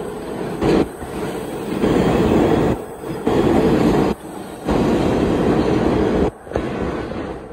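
New York City subway train running past the platform and pulling away into the tunnel, a heavy rumble of steel wheels on rail. The sound cuts out abruptly a few times and eases near the end as the last car leaves.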